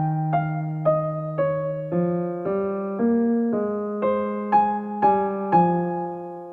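Slow, gentle keyboard music in a piano sound: single notes struck about twice a second, each ringing out over held lower notes.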